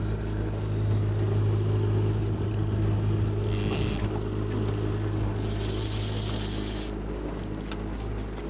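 A boat motor running steadily at slow trolling speed, a low even hum. Two short patches of hiss come over it, one about three and a half seconds in and a longer one a couple of seconds later.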